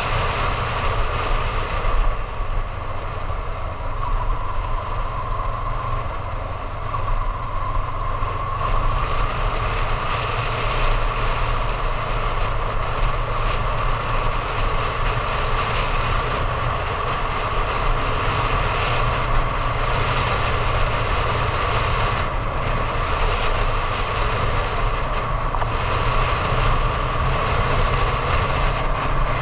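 Honda Hornet 750 motorcycle's parallel-twin engine running steadily as it rides along at road speed, with wind and road rush on the handlebar camera's microphone.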